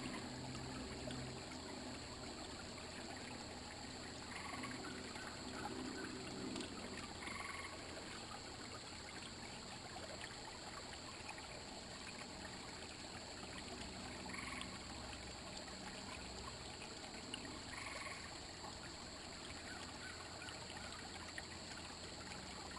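Shallow creek water trickling steadily, with a few faint short calls a few seconds apart.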